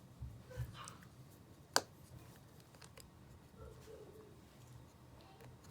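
Small clicks and taps of handling an opened-up iPhone 5 and small repair tools, with one sharp click a little under two seconds in.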